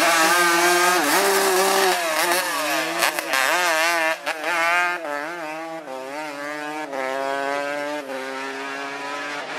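Drag-racing motorcycle engine accelerating hard down the strip, its pitch climbing and dropping back several times as it goes up through the gears, and growing fainter in the second half as the bike pulls away.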